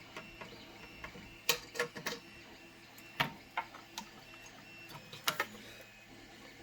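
Scattered light clicks and taps at irregular intervals, from a Helicoil insertion tool and a wire thread insert being handled against an aluminium tab.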